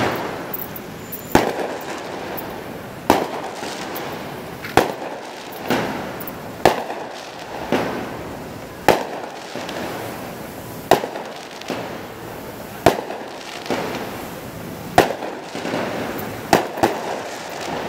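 Fireworks going off in a series of loud, sharp bangs, about one every second or two, each trailing off in a short echo.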